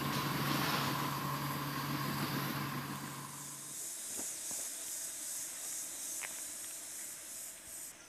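Hitachi Zaxis excavator's diesel engine idling steadily, cut off abruptly a little past a third of the way in. After it comes a fainter high hiss that pulses in level, typical of forest insects, with a few faint clicks.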